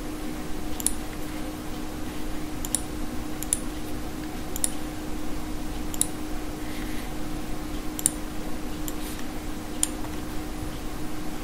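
Computer mouse clicks, about eight of them spaced unevenly a second or two apart, with a steady low hum underneath.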